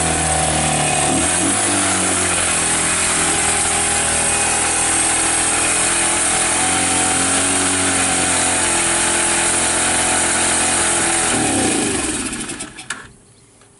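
Daelim VT 125's small four-stroke V-twin running steadily: the first run after long storage, with a freshly cleaned carburettor and the air filter still removed. About twelve seconds in, the engine winds down and stops.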